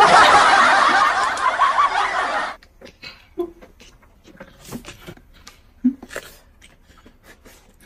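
Laughter for about the first two and a half seconds, cutting off suddenly. Then soft eating sounds follow, with scattered small clicks from chopsticks and food.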